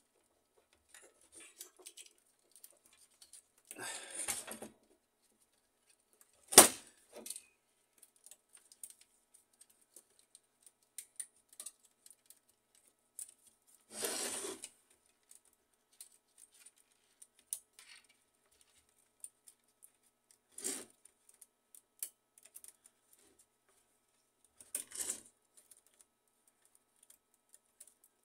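Small clicks and rattles of plastic and metal parts as a laser printer fuser assembly is handled and its wires and connectors are fitted. One sharp click comes a little over six seconds in, among a few short bursts of rattling.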